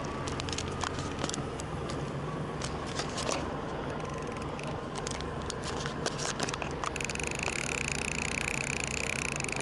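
Line-out clicker of an Okuma Tesoro conventional reel sounding as line is pulled off the spool: scattered irregular clicks at first, then, about seven seconds in, a steady high buzz as line pays out continuously. The clicker signals that line is going out without looking at the spool.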